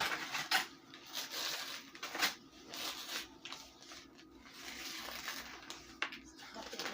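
Irregular crunching and crackling close to the microphone, many short sharp cracks over a rustly hiss, typical of chewing baked cornstarch.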